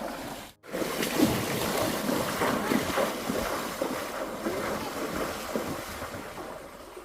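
Wind rushing over the microphone, with a brief cut to near silence about half a second in.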